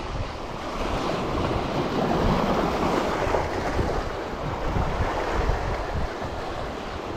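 Sea waves washing against a boulder shore, with wind buffeting the microphone in low gusts; the wash swells louder about two seconds in.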